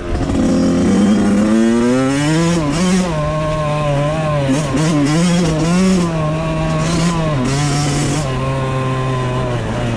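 Suzuki RM85's small two-stroke single-cylinder engine under way, its pitch climbing over the first couple of seconds, then rising and falling as the throttle is worked, and running steadier and a little lower near the end.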